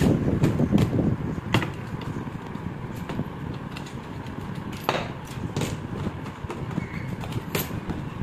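Wooden boards and hand tools being handled on a worktable: a handful of sharp wooden knocks and clicks over a steady low rumble, busiest in the first couple of seconds.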